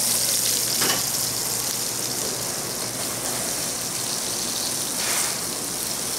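Yellowtail pieces, white peach wedges and potatoes searing in hot avocado oil in a pan: a steady, loud sizzle.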